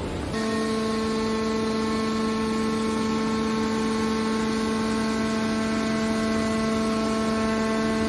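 Hydraulic power unit of a scrap metal baler running, a steady droning whine with a clear pitch that starts abruptly just after the start and holds unchanged.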